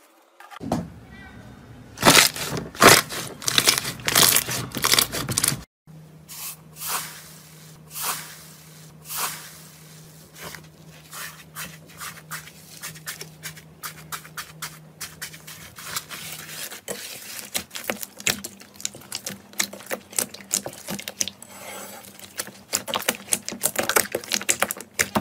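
Hands squishing, stretching and tearing slime, making a dense run of sticky crackles, clicks and small pops, one slime tearing through its grainy crust. The sound changes abruptly twice as one slime clip gives way to the next.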